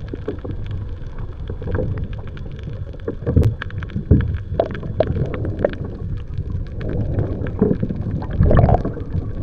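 Kayak being paddled: irregular splashes and knocks of paddle and water against the hull over a steady low rush.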